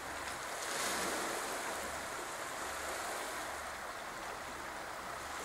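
Small sea waves washing steadily onto a stony beach, with some wind on the microphone.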